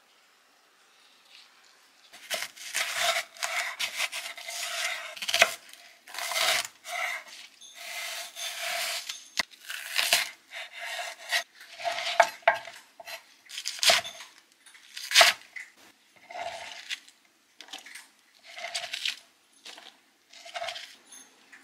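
A chef's knife cutting through Korean green onion stalks on an end-grain wooden cutting board: an irregular series of crisp slicing strokes, each with a knock on the board, starting about two seconds in after near silence.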